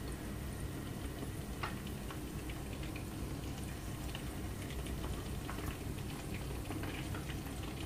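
Chicken-stock broth with wontons in it simmering gently in a pot over low heat, bubbling steadily with scattered small pops.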